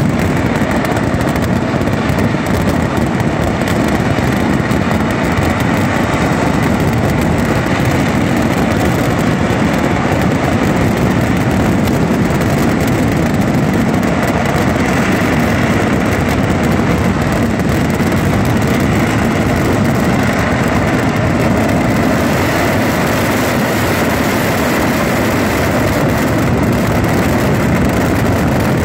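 Kerala temple fireworks (vedikettu): a dense, unbroken barrage of firecracker explosions, so rapid that the bursts merge into one loud, steady din.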